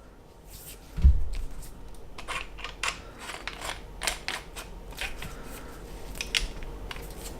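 Irregular sharp clicks and light rattles from a 1/2-inch drive torque wrench being handled, with a dull thump about a second in.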